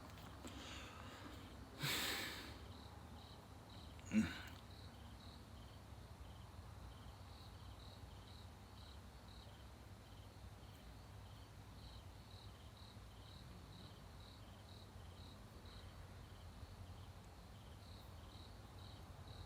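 Crickets chirping faintly in a steady high-pitched pulse of a few chirps a second. There is a short hissing burst about two seconds in and a single sharp knock about four seconds in.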